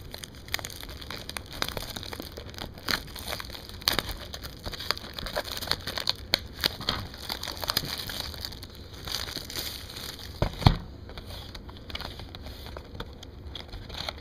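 A sealed trading-card retail box being opened by hand: its plastic wrap and cardboard crinkling and crackling with scattered clicks, and one sharper snap about ten and a half seconds in.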